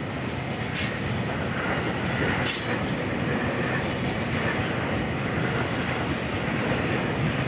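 Freight train wagons rolling steadily over the rails as the train pulls out, with two short, high-pitched wheel squeals, about a second in and again about a second and a half later.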